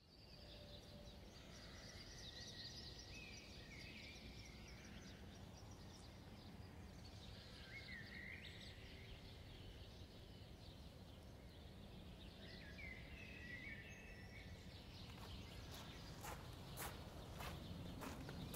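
Faint outdoor ambience in which a bird calls briefly a few times, then footsteps on a gravel path begin over the last few seconds.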